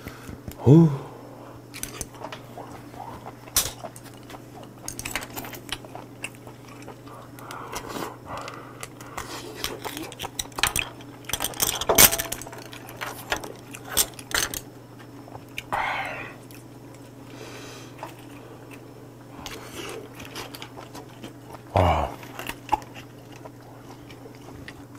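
Close-up eating of steamed shellfish: chewing and biting, with scattered clicks and clinks of chopsticks against clam and scallop shells and the pot. A few short voiced hums from the eater are heard about a second in, near the middle and a few seconds before the end, over a steady low hum.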